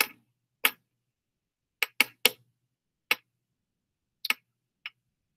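About eight short, sharp clicks at uneven intervals, three of them in quick succession about two seconds in.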